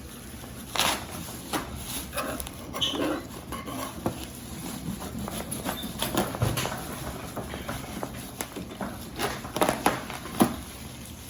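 Hands handling a typewriter's packing: rustling wrapping with irregular small knocks and taps, a few sharper knocks near the end.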